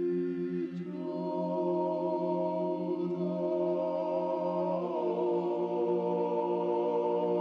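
Choir singing slow, sustained chant over a steady held bass drone. Higher voices come in about a second in, and the chord shifts about five seconds in.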